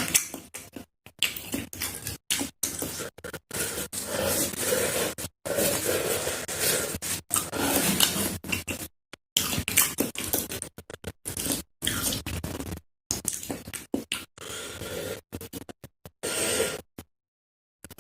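Eating ramen: noodle slurping, chewing and utensils against the bowl, cut into many short pieces with abrupt silent gaps between them.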